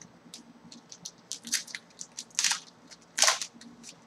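Trading-card pack packaging crinkling and crackling as a hockey card pack is opened, with three louder crunches of the wrapper.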